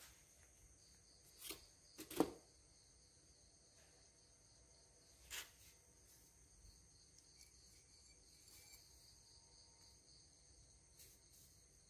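Near silence broken by three short knocks of metal motorcycle engine parts being handled as the cylinder head is fitted onto the cylinder; the second, about two seconds in, is the loudest. A faint, steady high tone lies underneath.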